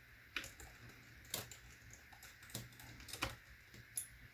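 Small screws being driven by hand with a screwdriver to fasten a replacement laptop LCD screen: about five sharp, irregular clicks and taps.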